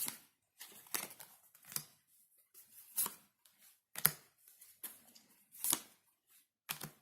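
Tarot cards being handled and laid out on a table: a series of short, crisp card slaps and slides, about one a second.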